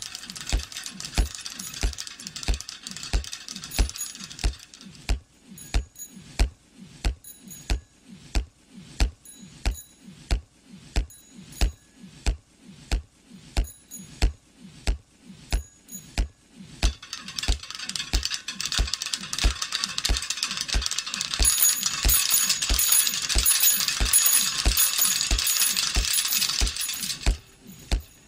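Film soundtrack built on a low thudding pulse, about two thuds a second, each sinking in pitch. A layer of clattering noise with small high ticks lies over it, fades out about five seconds in, and returns louder from about seventeen seconds until it cuts off near the end.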